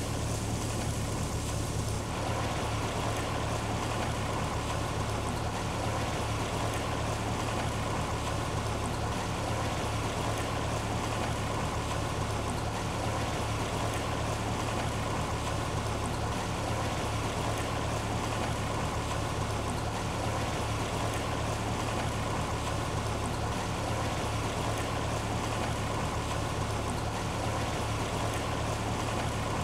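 Kent 28 motorboat's engine running steadily at low speed with a constant hum, mixed with water noise.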